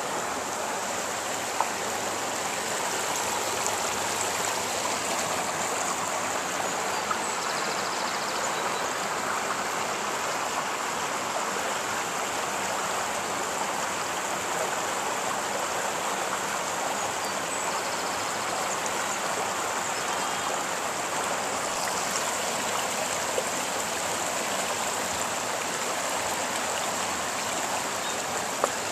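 Shallow rocky river running steadily over flat stone ledges and small cascades, a constant rush of water.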